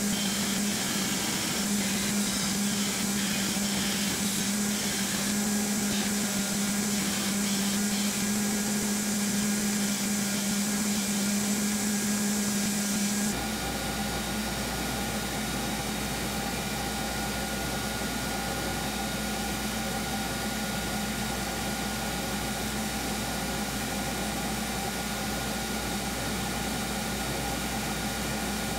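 Belt grinder running as a steel knife blank is ground to its rough profile, the hiss of the abrasive varying as the blade is pressed against the belt. About 13 seconds in the sound changes abruptly to a steadier grinder sound with a deeper hum, as the blank is worked on the grinder's small-wheel attachment.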